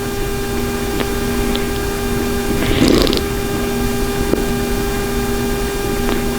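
A sleeping man wearing a Zyppah stop-snoring mouthpiece snores once, one rough breath about three seconds in, over a steady machine hum. The mouthpiece is not stopping his snoring.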